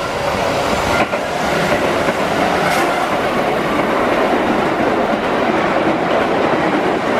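Keihan 8000 series electric train running at speed, a steady loud rush of wheels and running gear with a few clacks as the wheels cross rail joints.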